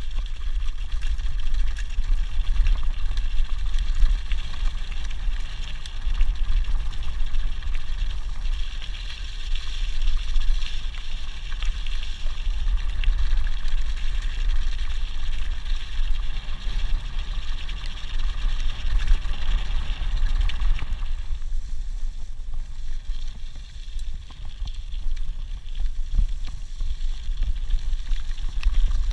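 Wind buffeting a handlebar-mounted action camera's microphone on a fast mountain-bike descent, with the tyres crunching over a loose gravel track and the bike rattling. The higher crunching fades about two-thirds of the way through, as the track turns to grass.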